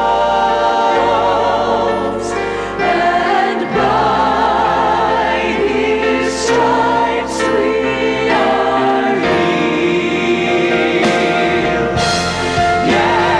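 Gospel choir singing long held notes with vibrato over instrumental backing with a steady bass.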